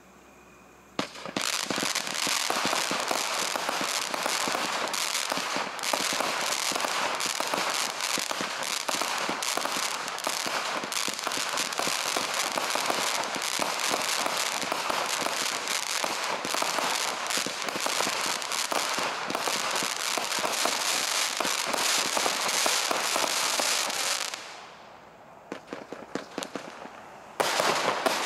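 Brothers Pyrotechnics 'Shazam' firework going off: a dense, continuous crackling that starts about a second in. It falls away for a few seconds near the end, then starts again loudly just before the end.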